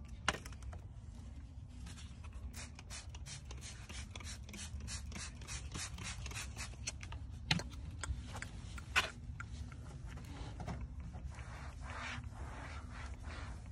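A cloth rubbing and scraping over an upholstered car door panel, with scattered light clicks and two sharper knocks past the middle.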